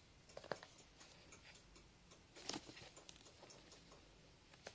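Near silence broken by a few faint taps and scrapes on a small cardboard box as it is poked and pawed at, once about half a second in and again about two and a half seconds in.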